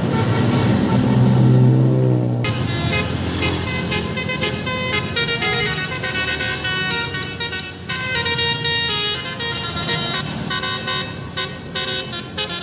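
Bus 'telolet basuri' multi-tone electric horn playing a melody of quick stepped notes. It starts about two and a half seconds in, after a low hum.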